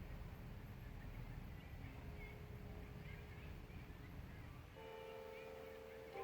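Faint bird chirps over quiet outdoor background, then about five seconds in a civil-defence siren's steady tone comes in, with a louder siren tone joining at the very end as the siren test begins.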